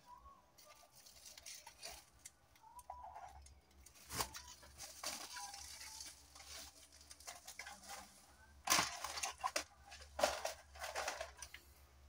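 Crinkling and rustling of a foil-lined mailer and plastic packaging being handled, with quick crackles and taps that come in clusters and are loudest in the second half.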